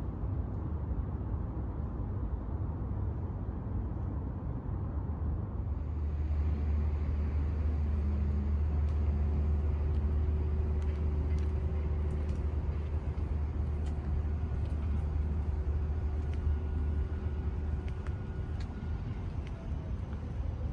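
Steady low rumble of outdoor city ambience, like distant traffic, which swells about six seconds in. A faint steady hum tone and scattered light ticks sit over it.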